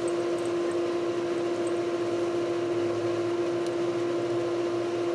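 Steady machine hum with one strong held tone, like a running fan or air-conditioning unit.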